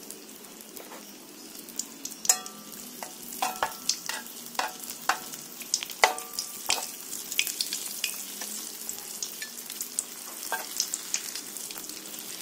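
Kue cucur batter frying in hot oil in an aluminium wok, with a steady sizzle and crackle. A metal spoon works the cake in the oil, giving a run of sharp clinks and scrapes against the wok through the middle, the loudest about two and six seconds in.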